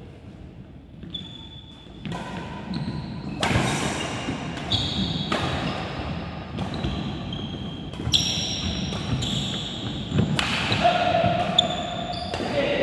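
Badminton doubles rally: rackets striking a shuttlecock back and forth, sharp pinging hits that come about once a second from about two seconds in, echoing around a large hall.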